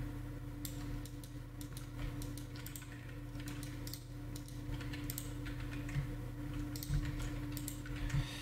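Computer keyboard keys and mouse buttons clicking at irregular intervals as Blender shortcuts are pressed, over a steady low hum.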